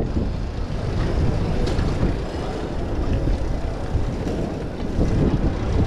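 Steady rumble of a bicycle rolling over brick paving, with wind on the microphone and city street noise around it.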